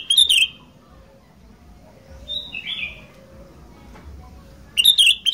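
Sooty-headed bulbul (kutilang) singing: a loud short phrase at the start, a softer phrase about two seconds in, and another loud phrase near the end.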